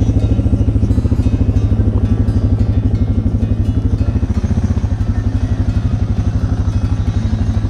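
Motorcycle engine running at low speed with a fast, even, steady pulse.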